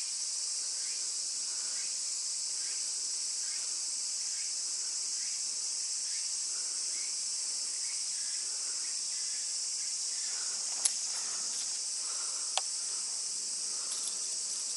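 A chorus of cicadas keeps up a steady, high-pitched drone in the midsummer heat. Near the end, two sharp clicks come about a second and a half apart.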